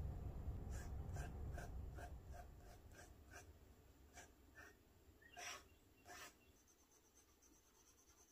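Faint fountain-pen handling on paper: a run of light taps about two or three a second, then a few sharper clicks, over a low rumble that fades away in the first few seconds.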